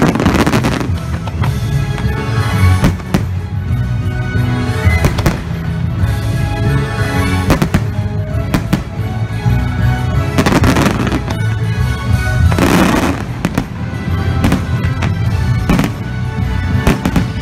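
Fireworks launching and bursting in quick succession, sharp bangs and crackling volleys, over loud music. The thickest crackling comes right at the start, again about ten and a half seconds in, and about thirteen seconds in.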